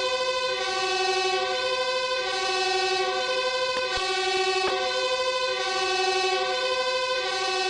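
Firefighter siren sounding a steady, chord-like tone that holds its pitch without rising or falling, with a gentle swell every second or two and a few faint clicks.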